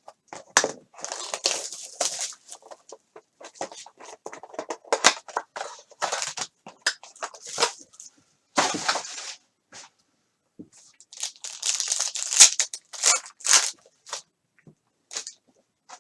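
Plastic wrapping on a sports card box and packs being torn open and crinkled by hand, in irregular bursts of crackling with a couple of short pauses.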